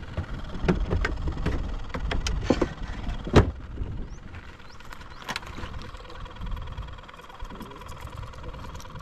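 Knocks and clatter from a hardhead catfish being handled on a small boat, one sharp knock loudest about three and a half seconds in, over a low wind rumble on the microphone.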